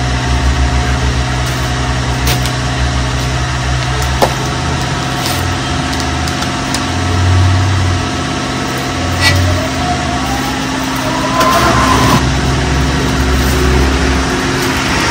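Steady low engine hum, like a motor vehicle idling, with a whine that rises in pitch about ten seconds in, and a few small knocks.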